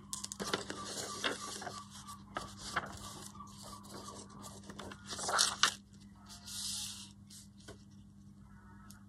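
Paper and a clear plastic acetate sheet being handled and slid over each other on a craft mat: rustling and crinkling with small taps. The loudest rustle comes about five seconds in.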